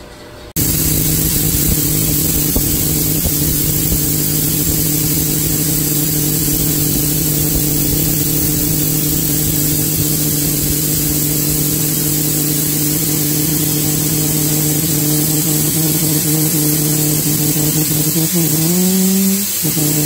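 Cold gas rushing out of a small fitting on a frosted stainless cryostat tube: a loud hiss with a steady low hooting tone. Near the end the tone wavers up and down and cuts out for a moment as a gloved finger presses over the outlet.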